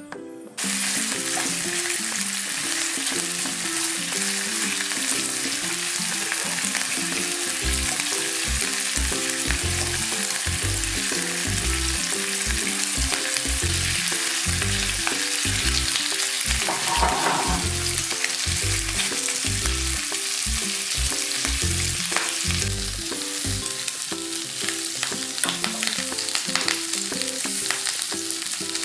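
Food sizzling in a hot frying pan and being stirred, starting abruptly about half a second in, over background music.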